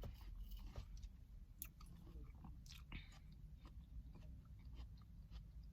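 Faint, wet chewing of watermelon, with small irregular mouth clicks.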